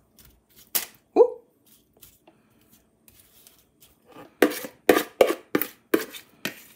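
Metal spoon scraping and knocking against a mixing bowl while scooping out wet apple filling. A couple of clicks come about a second in, one with a short ring, then a quick run of about seven sharp knocks near the end.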